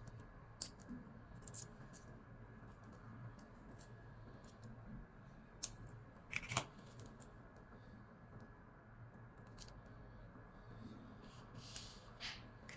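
Faint, scattered small clicks and light scrapes of a wristwatch being handled and worked on, with a sharper cluster of clicks about six and a half seconds in and a short scrape near the end.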